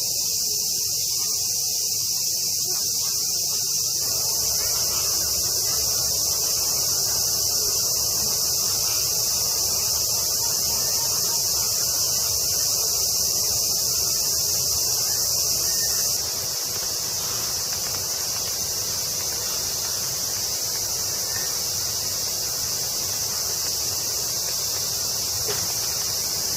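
Steady, dense high-pitched insect chorus, shrilling without a break and a little quieter after about sixteen seconds.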